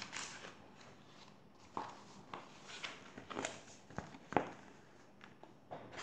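Pages of a paperback picture book being turned and handled: faint paper rustling with a few sharp ticks and taps.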